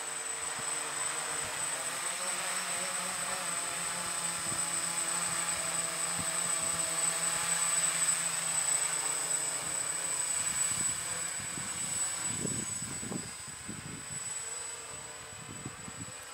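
Hexacopter's six electric motors and propellers buzzing in flight, loudest as it passes overhead about halfway through, then fading as it flies away.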